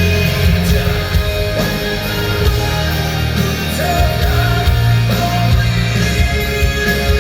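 Power metal band playing live, a sung vocal line over the guitars and band.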